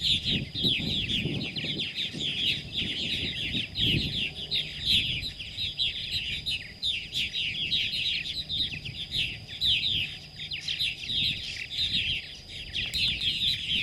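Purple martin colony chattering: many birds calling at once in a dense, unbroken stream of quick, downward-sliding chirps.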